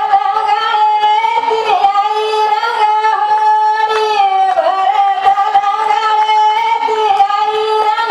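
A woman singing a Banjara folk song through a stage microphone, holding long notes that waver and bend slowly in pitch.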